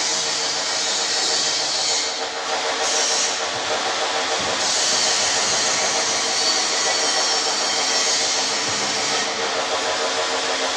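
Tobacco blending bin machinery running steadily: a continuous loud hiss with an even hum of several steady tones underneath.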